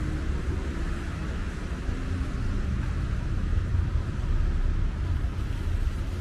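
Ambience of a rainy city street: a steady low rumble of traffic with an even hiss of tyres and rain on wet pavement.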